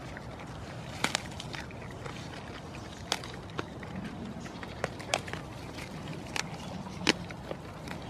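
A goat browsing on a leafy shrub at close range: irregular crisp snaps and crunches as it tears off and chews leaves and stems, over a low steady background noise.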